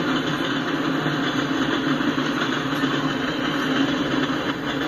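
Freight cars rolling past: a steady, even rumble of steel wheels on the rails.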